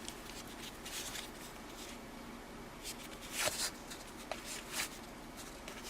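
1984 Topps hockey cards being handled and slid one by one off a freshly opened wax pack: faint rustles and soft flicks of cardboard, a little louder about three and a half seconds in.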